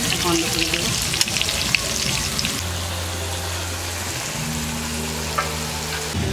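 Potato chunks frying in oil in an aluminium kadai, sizzling while a metal spatula stirs them and clicks against the pan. After about two and a half seconds the sizzle and clicks die down and a steady low hum carries on.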